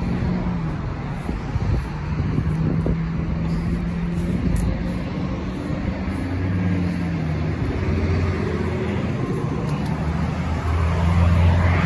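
Steady road traffic, cars passing on a busy road, with a deeper engine hum swelling in the second half.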